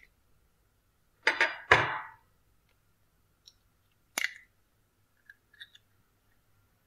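Table knife knocking on an eggshell, a quick few knocks about a second and a half in with the last the loudest, then a single sharp crack as the shell is pulled open about four seconds in, followed by a few faint clicks of shell.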